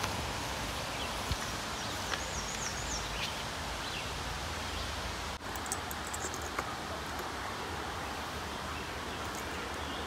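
Steady outdoor background noise, like a breeze in leaves, with a bird's short warbling call about two seconds in and a few faint light ticks.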